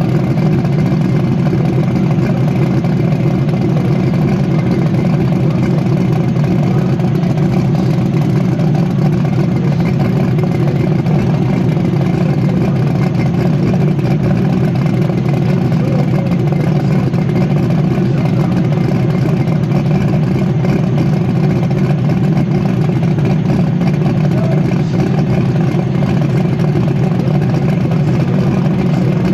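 An engine running steadily at constant speed with a low, even sound; the pitch and level do not change.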